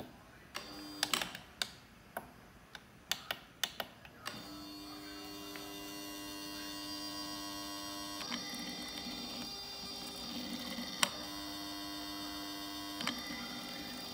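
Sharp clicks from button presses on an ECU test-bench tester. About four seconds in, a steady hum of several held tones begins and shifts in pitch every few seconds.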